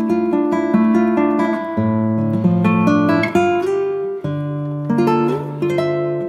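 Background music played on acoustic guitar: plucked notes and chords over changing bass notes.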